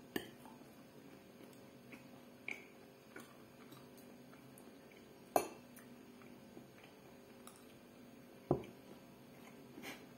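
Cutlery clinking against a plate during a meal: a few scattered soft clicks and light knocks, the loudest about five and eight and a half seconds in.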